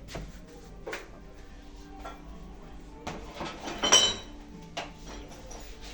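Metal parts and hand tools knocking and clinking during work on a washing machine's drum nut, with one loud metallic clatter about four seconds in.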